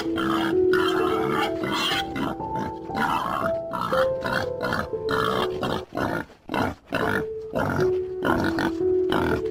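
Pigs grunting in quick, short bursts, about two or three a second, over background music with held notes.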